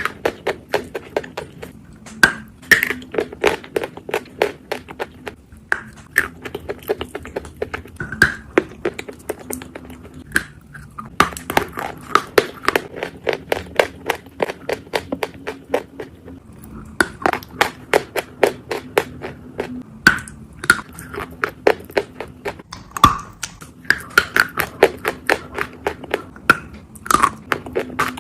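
Close-miked crunching of dry edible chalk being bitten and chewed: dense runs of sharp, crisp crunches broken by a few short pauses.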